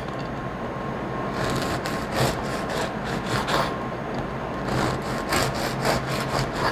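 Knife sawing through crusty bolillo bread rolls, slicing them in runs of quick back-and-forth strokes.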